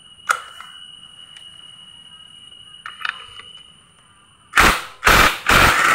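Cordless impact wrench hammering in three short bursts near the end, loosening the clutch centre nut on a Yamaha Vega ZR engine. A few light metal clicks come before it.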